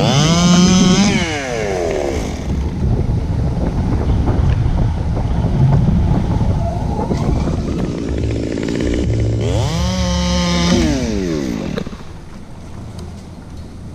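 Stihl chainsaw revved up and let back down to idle twice, once at the start and again about ten seconds in, running at idle in between and more quietly near the end.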